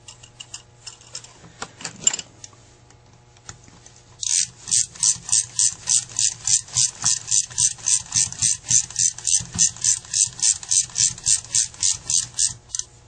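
A few light clicks and a knock of carburetor parts being handled. Then, from about four seconds in, a ratcheting screwdriver clicks steadily, about four clicks a second, as the top's screws are driven into a Carter AFB carburetor. The clicking stops shortly before the end.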